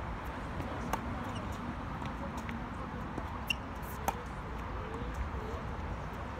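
Tennis ball struck by racquets during a rally on an outdoor hard court: a few sharp pops, about a second in and twice more around three and a half to four seconds in, over a steady low rumble.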